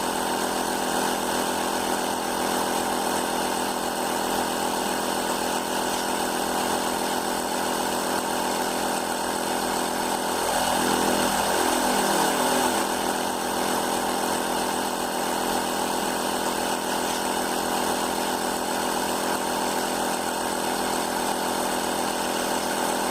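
Portable tire inflator compressor running steadily while pumping the tire up toward 32 psi, with a brief shift in pitch about halfway through.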